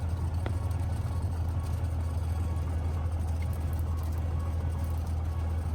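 Cessna 182S single-engine light aircraft's six-cylinder engine and propeller, a steady low drone heard inside the cabin.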